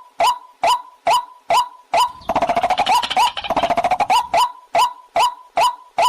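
Waterhen call playing: a short call repeated steadily about twice a second, broken from a little after two seconds in until past four seconds by a rapid chattering run.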